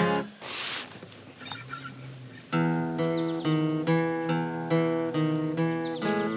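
Acoustic guitar being strummed. After a chord at the start the playing breaks off, with a short hiss about half a second in, then steady, even strumming of chords picks up again about two and a half seconds in.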